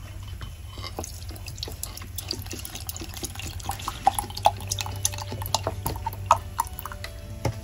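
Low-fat milk poured from a carton into a glass jar of oats: a stream of liquid with small splashes and short bubbling blips, over a steady low hum.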